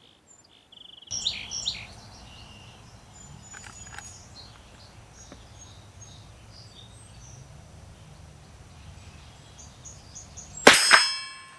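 Birds chirping over a faint outdoor background. Near the end comes a single sharp shot from a Henry lever-action .22 LR rifle, followed by the ringing of the steel target it hits.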